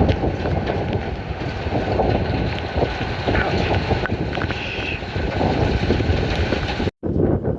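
Strong thunderstorm wind gusts blowing across the microphone: a loud, rushing noise with a low rumble that swells and eases. It cuts out for an instant near the end, then resumes.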